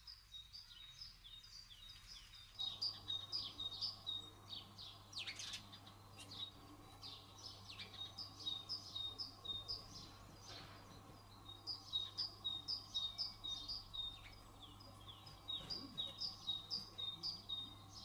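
House sparrows chirping: quick runs of high chirps in bouts of a few seconds, separated by short pauses.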